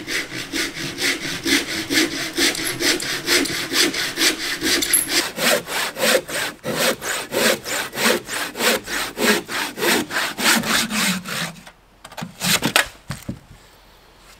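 A hand saw cutting through a log with quick, even back-and-forth strokes, about four a second. The strokes stop near the end, and a few last ones follow.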